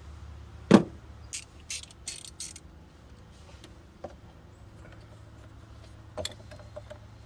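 Metal tools and engine parts being handled: a sharp knock about a second in, a few quick high clinks after it, and softer taps later, over a steady low hum.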